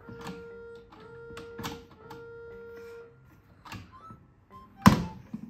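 Background music with a long held note, over a few short clicks and knocks from a clear plastic container with small items inside being handled by a baby. The loudest sound is a sharp knock near the end.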